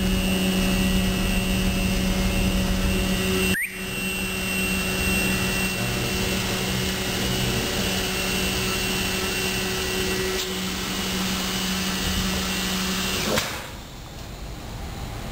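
JACKO J24-T polarizer laminator running: a steady machine whir with a low hum and a faint high whine, broken off for an instant about three and a half seconds in, and dropping to quieter machine noise near the end.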